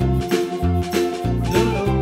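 Upbeat background music with a steady beat, bass notes and a melody.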